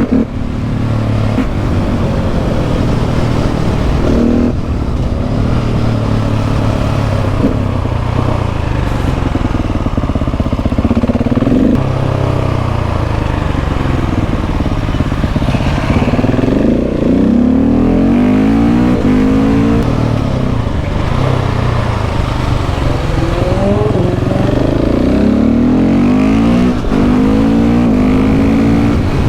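KTM 690 SMC R single-cylinder engine breathing through a LeoVince aftermarket exhaust, ridden hard through hairpins: the engine revs up and falls back off the throttle again and again, its pitch rising and dropping.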